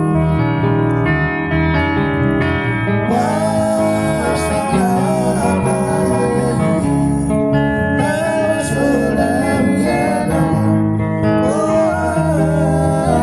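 Live band music: guitars playing steady chords, with a voice singing from about three seconds in.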